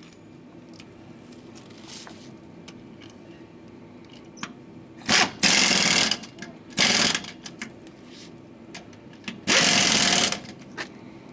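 Impact wrench running lug nuts onto a wheel in three rapid rattling bursts, about five, seven and nine and a half seconds in, the first and last about a second long and the middle one shorter.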